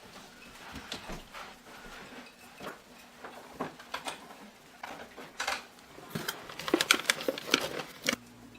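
Clicking, knocking and clattering of small hard objects being handled and rummaged through. It grows busier and louder toward the end and stops abruptly about 8 seconds in.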